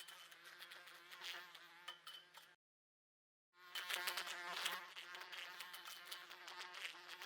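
A fly buzzing against window glass, with rapid little taps as it hits the pane. The buzzing cuts out completely for about a second midway, then comes back louder.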